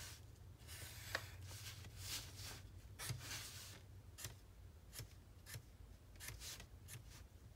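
Black Tombow Twin Tone marker drawing lines on watercolor paper: a faint run of quick, short strokes, a dozen or so, unevenly spaced.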